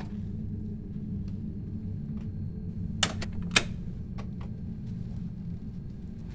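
A steady low hum, with two sharp clicks about half a second apart near the middle and a few faint ticks after them.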